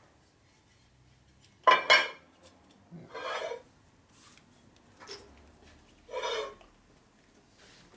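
Aluminium Harley Evo engine case half clanking against the steel table of a milling machine: two sharp knocks a little under two seconds in, then two shorter scraping rubs of metal on metal, about three and six seconds in.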